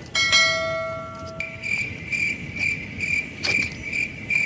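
A single ringing tone that fades out over about a second, then crickets chirping in a steady rhythm, a little over two chirps a second.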